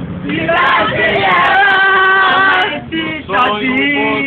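Several men and women singing loudly together, holding long notes, with a short break about three seconds in.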